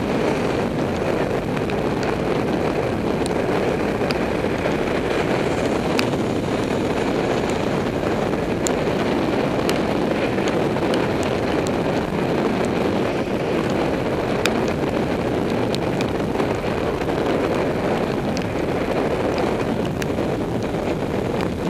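Steady wind rushing over the microphone of a road bike's handlebar camera at about 35 km/h on a wet road, with scattered small ticks.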